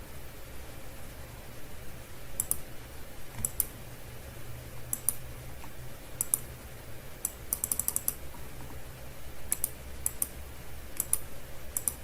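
Computer keyboard and mouse clicks, scattered and irregular, with a quick run of clicks around the middle, over a steady low hum.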